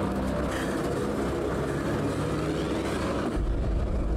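Truck engine idling with a steady low rumble. A deeper, heavier rumble swells in about three seconds in.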